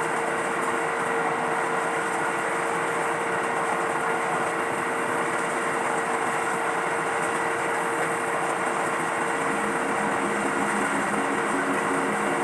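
A small engine running steadily at an even speed, with a constant hum.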